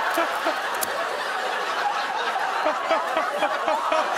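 Studio audience laughing steadily, many voices overlapping.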